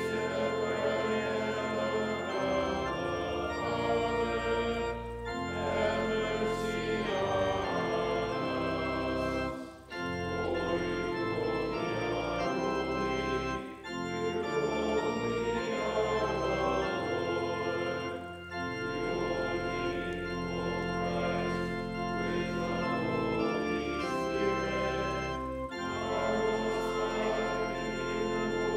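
Church organ playing a hymn or liturgical canticle in sustained chords, with short breaks between phrases.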